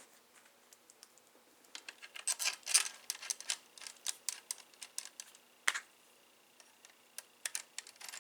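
A run of light, irregular clicks and taps, thickest in the first half with a sharper click just before six seconds and a few more near the end, over a faint steady hum.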